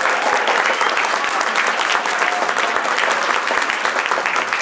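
Audience clapping steadily, a dense, even patter of many hands.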